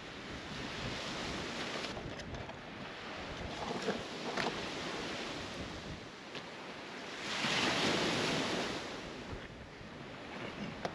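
Surf washing onto a beach, with some wind on the microphone; one wave swells up loudest about seven to nine seconds in.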